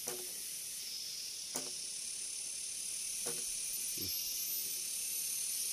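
Steady high hiss of insects in dense vegetation, broken by a few brief clicks.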